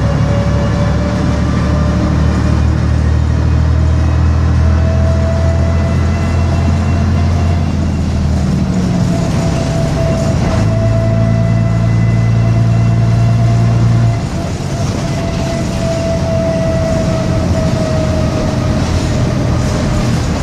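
Bristol RELL6L bus's diesel engine and drivetrain running under way, with a thin steady whine above the engine note. The engine note changes about eight seconds in and again around ten and a half seconds, then falls back and eases off a little about fourteen seconds in.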